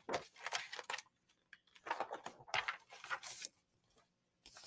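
Paper rustling and scraping as a picture book is handled and a page is turned, in two spells of short rustles.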